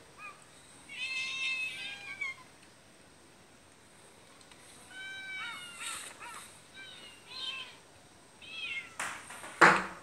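A crowd of cats meowing again and again, several calls at different pitches overlapping. A sudden loud clatter comes near the end.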